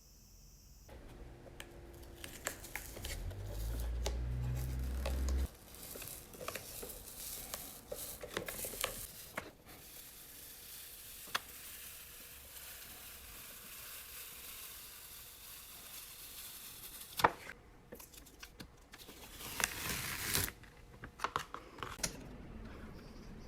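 Workshop handling noises: scattered clicks and light knocks. Near the start, a low hum rises for a few seconds and then stops abruptly.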